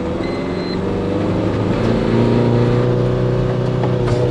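Tata Intra V50 pickup's diesel engine pulling hard under a 1500 kg load in eco mode. The engine note holds under acceleration, then drops near the end as the truck comes off the throttle to brake.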